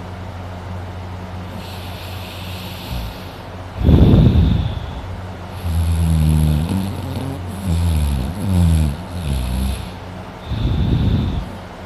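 A sleeping man snoring loudly, with a loud snore about four seconds in and another near the end. Between them a wavering, pitched low droning, over a steady low hum.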